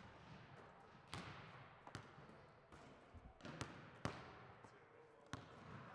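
Basketballs bouncing on a hardwood gym floor: about five separate sharp thuds, irregularly spaced, a second or so apart.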